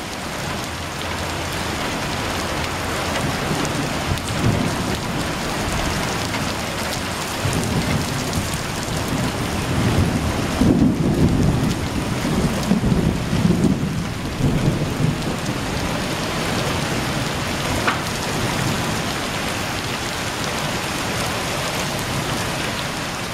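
Heavy rain pouring onto a gravel alley and its puddles, a steady hiss. Distant thunder rolls in a long low rumble from about a third of the way in until past the middle.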